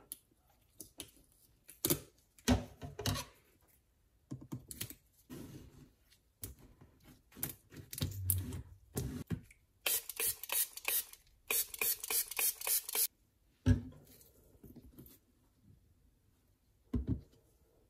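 Clear adhesive tape being pulled off the roll and pressed along the seam of two stacked plastic storage tubs, amid clicks and knocks of the plastic boxes being handled. The longest rasp of tape unrolling comes a little past halfway.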